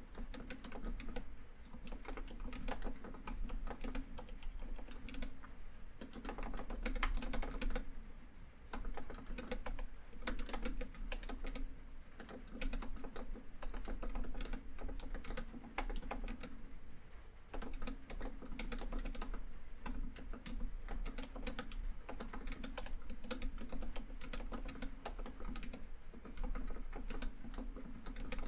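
Steady typing on a laptop keyboard, quick irregular key clicks with a couple of brief pauses, over a steady background of rain on a tin roof.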